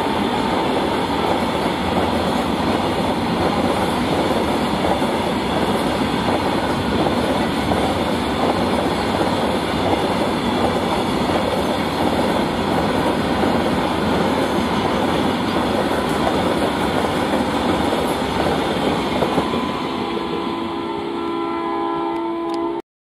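Loaded BTPN oil tank wagons of a long freight train running past close by: a continuous heavy rumble and clatter of wheels on the rails. Near the end the rumble eases and a few steady pitched tones sound over it, then the sound cuts off suddenly.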